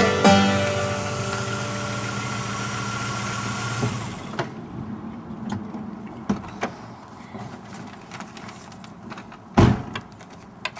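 A held chord of background music fades out over the first four seconds. Then a parked car gives a few light clicks and, about nine and a half seconds in, one loud thud of a Volkswagen Jetta's door.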